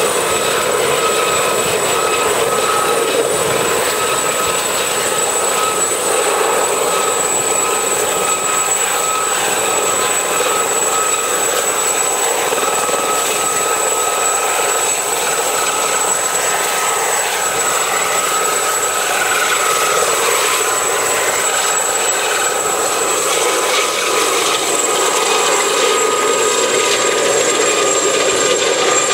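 Turboshaft helicopters departing, a Sud Aviation Alouette II and an Aérospatiale Gazelle: a steady high turbine whine over loud rotor noise.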